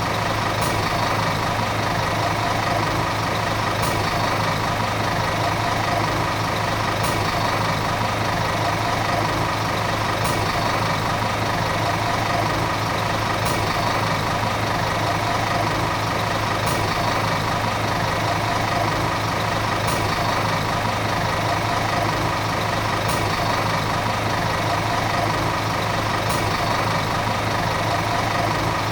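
Diesel engine of a Volvo city bus running steadily, an even drone that holds the same revs throughout.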